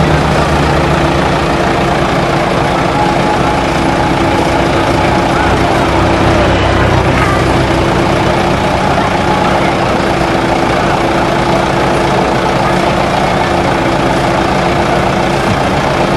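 Flatbed tow truck's engine running steadily at idle with a constant hum while it loads a vehicle onto its tilted bed.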